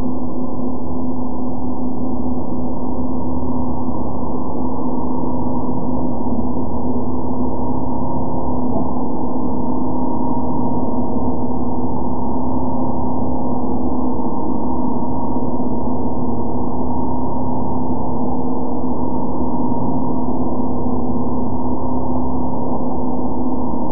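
YZ-500SGATC 3-axis CNC machining centre's end mill cutting an aluminium block: a steady, unchanging ringing hum, muffled with no treble.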